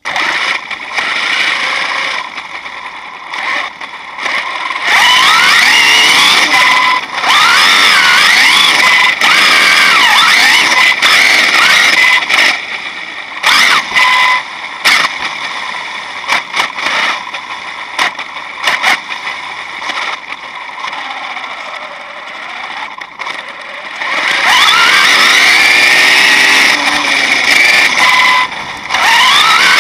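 Thunder Tiger EMTA electric RC monster truck heard from a camera riding on it: the motor and drivetrain whine rising and falling in pitch as the throttle is worked. Long loud full-throttle runs alternate with quieter stretches of coasting and short bursts.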